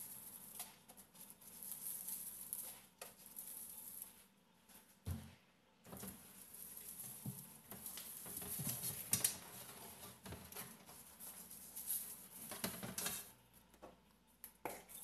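Salt grains pattering faintly onto a raw whole chicken and the non-stick pan while hands turn the chicken over, with a few light knocks of the chicken and hands against the pan.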